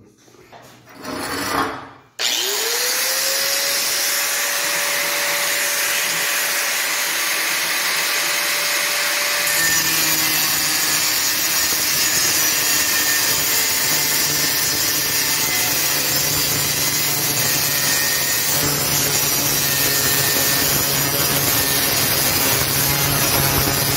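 A 4.5-inch angle grinder starts about two seconds in, its whine rising quickly to speed and then running steady. From about a third of the way through, its disc cuts into a Harley-Davidson Sportster's exhaust pipe, adding a rough metal-grinding noise beneath the whine.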